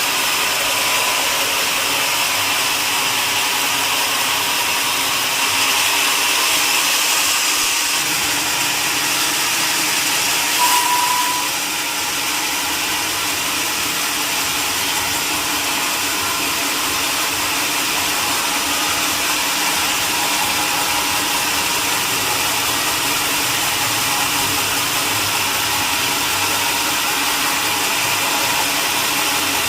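Sawmill saw machinery running steadily with a continuous mechanical hiss and whine. About eleven seconds in there is a brief sharp click followed by a short high tone, and then the noise goes on unchanged.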